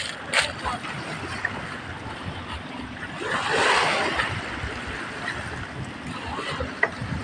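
Shallow seawater lapping at the shore with wind on the microphone, a broader rush of noise swelling a little past the middle, and a few faint knocks.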